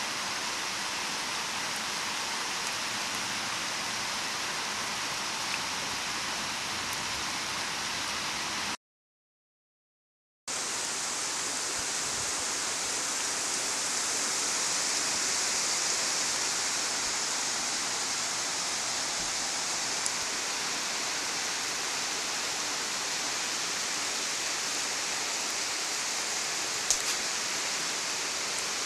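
Heavy rain pouring steadily, a constant even hiss. It drops to dead silence for about two seconds, roughly nine seconds in, where the recording cuts, then resumes with a brighter, hissier tone.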